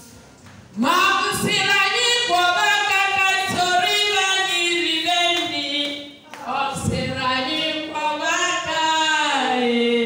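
Voices singing a song in two long phrases: the first starts about a second in, there is a brief break around six seconds, and the second phrase ends near the end.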